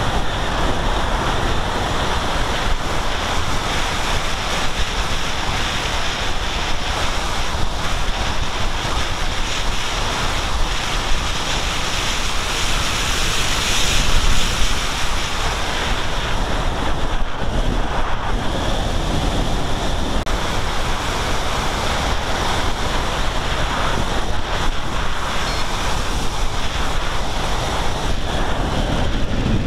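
Steady rush of wind over the microphone of a camera carried on the Sky Climber in flight, louder for a moment about halfway through.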